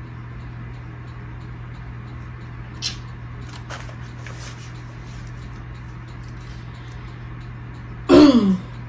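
A steady low hum of room noise with a couple of faint clicks, then near the end a short, loud vocal sound from a person, falling in pitch, like a throat-clearing or brief exclamation.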